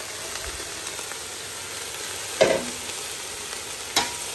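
Pot of chicken and vegetables in cream sizzling on the hob as grated cheese is tipped in from a plastic bowl. Two sharp knocks come about a second and a half apart, the second near the end.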